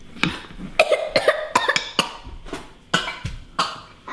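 Short, irregular grunts and huffs of effort from a man rolling out pizza dough hard with a rolling pin on a plastic chopping board.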